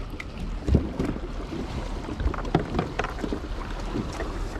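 Water lapping and slapping against a kayak hull in irregular knocks and splashes, the loudest a little under a second in, with wind rumbling on the microphone.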